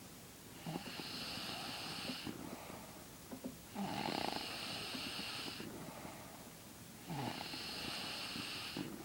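A sleeping woman snoring: three long snores in a steady rhythm, one about every three and a half seconds, each lasting nearly two seconds with a quieter breath between.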